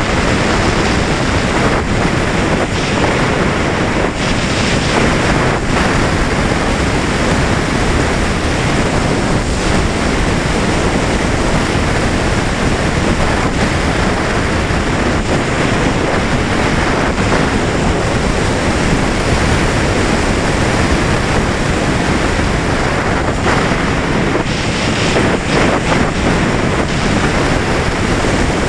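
Steady rush of airflow buffeting the microphone of a camera mounted on the wing of a Valenta Volcano 3.7 m R/C sailplane in flight, with no motor tone heard.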